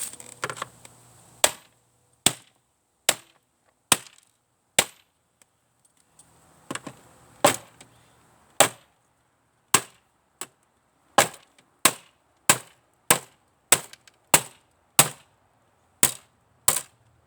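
A run of about twenty sharp, hard blows on the casing of a piece of old stereo or CB equipment as it is forced open, paced roughly one every two-thirds of a second. They pause for about two seconds partway through, then carry on.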